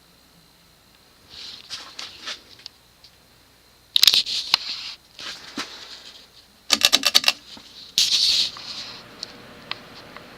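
Handling noise: bursts of rustling and scraping, and about two-thirds of the way through a quick run of roughly eight sharp clicks.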